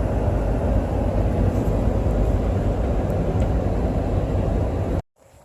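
Steady low rumble of road and engine noise inside a moving vehicle's cabin, cutting off abruptly near the end.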